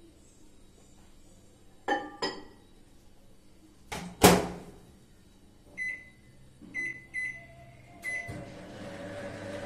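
Samsung microwave oven: two light knocks as the mug is set inside, then the door shuts with a loud knock about four seconds in. Four keypad beeps follow as the two-minute time is set, and the oven starts running with a steady hum near the end.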